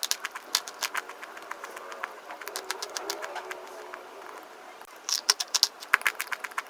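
Rapid crunching: a quick run of sharp crackling clicks that thickens into a dense flurry about five seconds in. A faint wavering pitched sound, voice- or coo-like, comes through in the middle.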